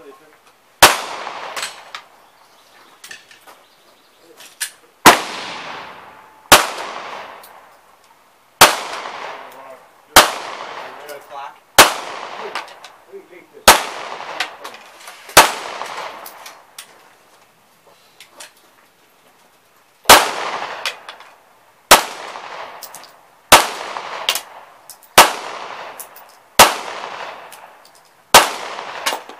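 Handgun fired in slow, single aimed shots, about one every one and a half to two seconds. Each shot is sharp and loud with a long echoing tail. Eight shots, a pause of about four seconds, then six more.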